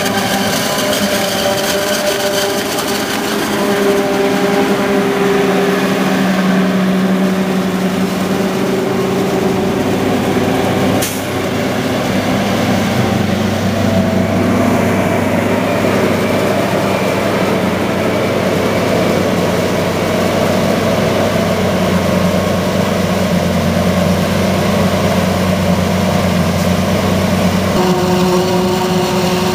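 John Deere self-propelled forage harvesters running under load while chopping corn, a steady heavy engine drone mixed with the noise of the cutting head, and a silage truck's engine alongside. The sound changes abruptly about eleven seconds in and again near the end.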